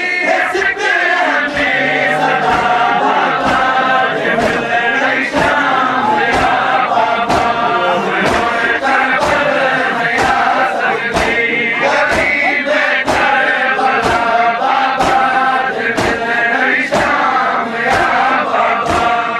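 A crowd of men chanting a Seraiki noha in unison over rhythmic matam, hands striking chests together about twice a second.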